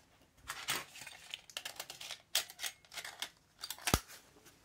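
Panasonic SJ-MJ70 portable MiniDisc player being handled as a disc is loaded: a run of small plastic clicks and rustles, with one sharp click near the end.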